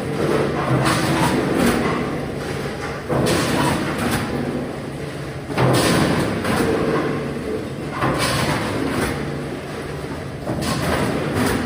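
Frozen-food vertical packing machine line running: a steady mechanical hum with a louder noisy surge about every two and a half seconds.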